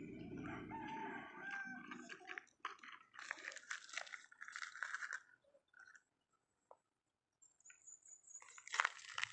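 Plastic toy trucks dragged on a string over loose gravel: small stones crunching and rattling under the plastic wheels in short, irregular scrapes, with a near-silent pause after about six seconds.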